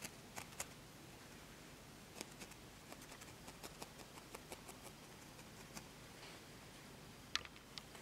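Faint, quick clicks and pricks of a felting needle stabbing repeatedly into wool, irregular at roughly two to four a second, with one sharper click near the end.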